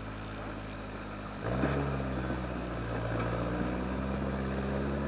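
Toyota-based rock crawler buggy's engine working under load as it climbs a rock crack, revving up sharply about a second and a half in and then holding at the higher revs.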